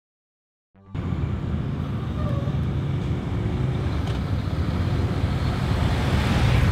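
Engines of a pack of touring motorcycles riding past in a column: a steady low rumble that starts suddenly about a second in and grows a little louder toward the end as the bikes draw near.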